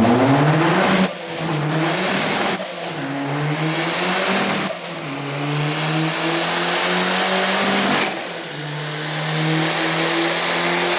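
Turbocharged Ford Focus engine at full throttle, pulling up through the gears with four upshifts. Each shift brings a short high turbo chirp, then the engine pitch climbs again under a rising turbo whistle. It is a first-to-fifth-gear pull to check the fuel mixture.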